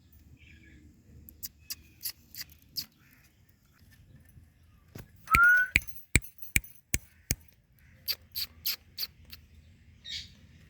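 Runs of sharp clicks, with one short, loud rising whistle about five seconds in and a brief squawk near the end, from a pet Indian ringneck parrot.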